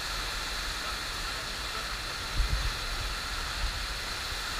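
Steady rush of water from a FlowRider sheet-wave ride, pumped in a thin sheet up the padded slope, with a few low thumps about halfway through.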